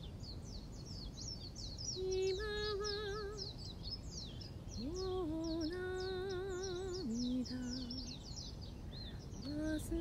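A woman's soprano voice holding a few long wordless notes with a wavering vibrato, with short gaps between phrases, over a continuous chorus of quick, high bird chirps.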